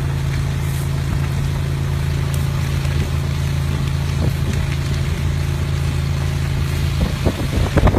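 Fire truck engine running steadily, a low even hum under a steady rushing noise. Near the end the hum stops and gusts of wind buffet the microphone.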